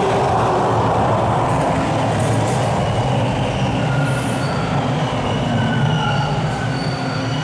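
TTC subway train of T1 cars running in the station with a steady rumble. From about three seconds in, thin high-pitched wheel squeals come and go.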